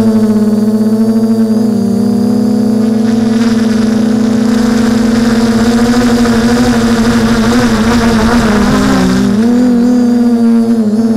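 Electric motors and propellers of a hobby drone heard from its own onboard camera: a steady, loud whine with overtones whose pitch wavers as the throttle changes. In the middle a rush of air noise swells and then fades, and the pitch dips briefly near the end.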